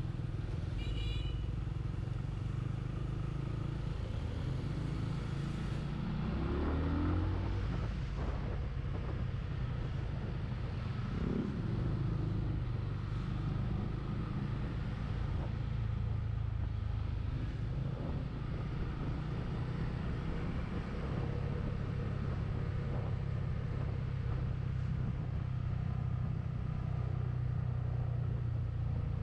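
Benelli TNT 25 motorcycle's single-cylinder engine running under way with steady wind rush. The engine pitch rises about six seconds in and again around eleven seconds in.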